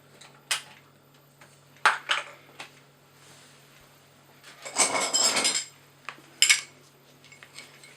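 Metal hand tools clinking and clattering as someone searches through them for a wrench: a few sharp single clinks, a longer rattle of tools being shifted about halfway through, then a couple more clinks.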